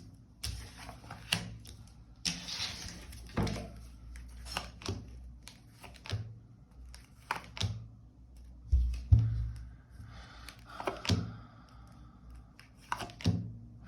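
Tarot cards being handled on a table: short papery swishes of shuffling and sliding, with scattered light taps and clicks and a louder low thump about nine seconds in.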